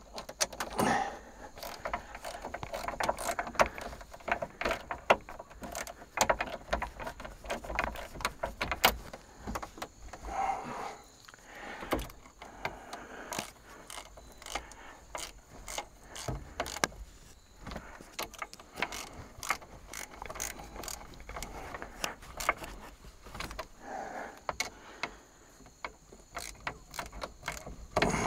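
Irregular metallic clicks, knocks and jingling from hand tools and loose bolts being handled during work on an old semi truck.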